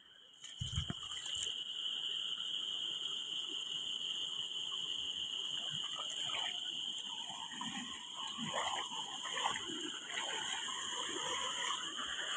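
A chorus of frogs and insects over waterlogged fields after rain: a steady high-pitched trilling drone throughout, with scattered short croaking calls joining from about halfway through.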